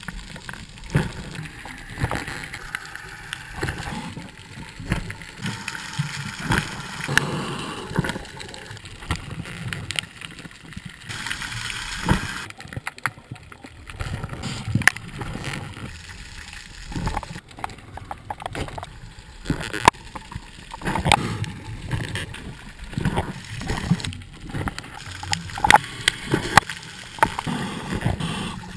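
Scuba diver's regulator underwater, with bursts of exhaled bubbles gurgling every second or two. Irregular sharp clicks and knocks run through it as the gloved hand and gear bump against rock.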